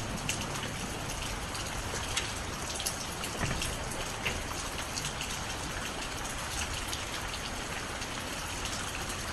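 Steady rain falling, with scattered individual drops ticking sharply on nearby surfaces.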